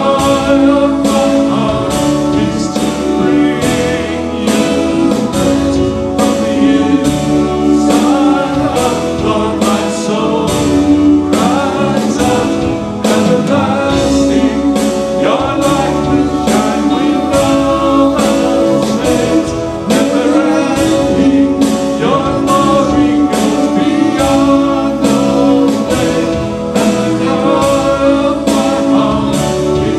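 A worship song sung with instrumental backing, with a steady beat.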